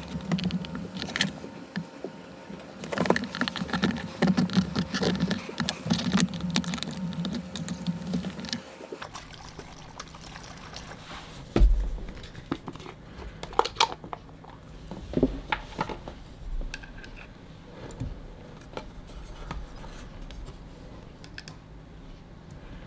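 Hands squelching and pressing into wet alginate impression material in a plastic tub, with dense wet sloshing and clicks. After about 9 s, sparser handling clicks and knocks from opening a bottle of mould release agent and dipping a brush, including one sharp thump about 11.5 s in.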